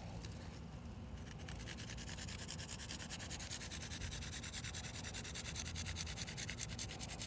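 A garlic clove being grated on a fine rasp grater: rapid, even scraping strokes that start about a second in and keep a steady rhythm.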